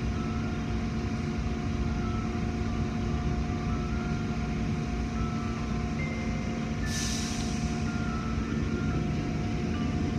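Automatic car wash machinery running, heard from inside the car: a steady hum and rumble with water spraying over the car, and a sudden burst of hissing spray about seven seconds in.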